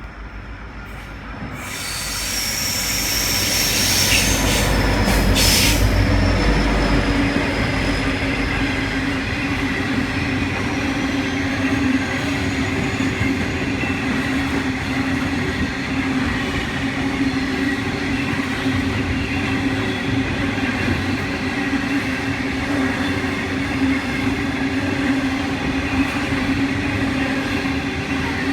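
A pair of 81 class diesel-electric locomotives passes close by, loud from about two seconds in. Then a long string of freight wagons rolls past with a steady rumble and faint high wheel squeal.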